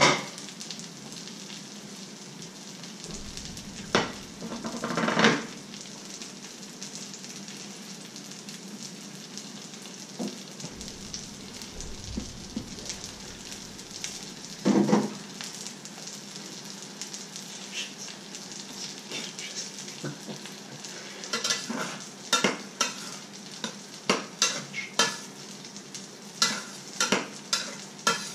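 Egg with fish fingers frying in a pan, sizzling steadily. Kitchenware clatters a few times, then a run of quick sharp clinks of a utensil against pans fills the last several seconds.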